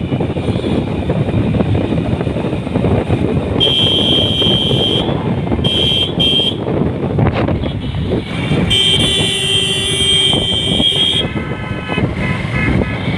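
Steady road and wind noise of a car driving on an open road, with vehicle horns honking over it: one honk of over a second about four seconds in, a quick double toot around six seconds, and a longer honk of over two seconds near ten seconds.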